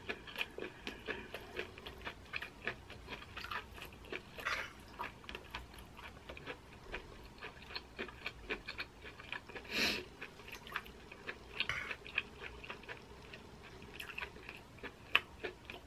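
Close-up eating sounds of a person chewing corn cheese (sweet corn under melted mozzarella), with soft wet clicks several times a second. One longer, louder noise comes about ten seconds in.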